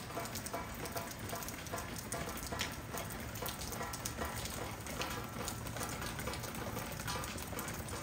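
Steady rain falling: a dense, even patter made up of many separate drop hits.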